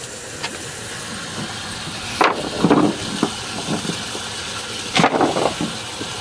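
Cast net with lead weights dropped onto a boat deck as it is emptied of shad: two bursts of clattering knocks, about two seconds in and again about five seconds in, over a steady hiss.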